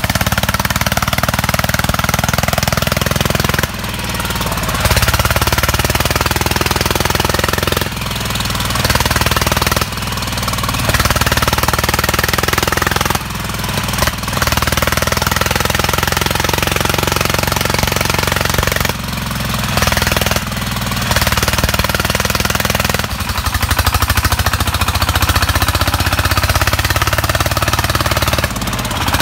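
Single-cylinder diesel engine of a công nông two-axle farm vehicle running with a fast, even chug. The sound changes abruptly several times.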